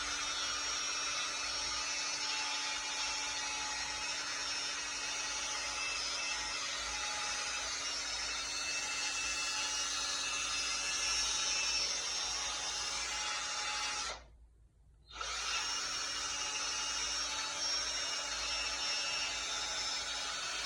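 Electric drill running steadily at one constant speed, a noisy whir. It stops for about a second two-thirds of the way through, then runs again just as before.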